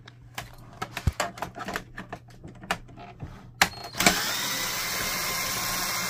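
Light scattered clicks and taps of the printer's plastic casing being handled, then, about four seconds in, a cordless drill with a Phillips bit starts and runs steadily, backing a screw out of the side panel.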